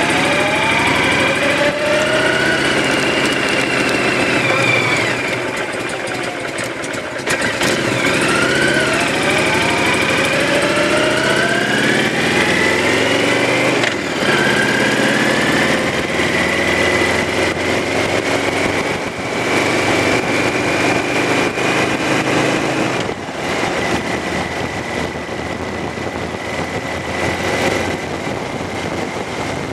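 Honda VTX 1300's V-twin engine running under way. Its note rises again and again as the bike accelerates through the gears, then holds steady at cruising speed, and eases off about three-quarters of the way through.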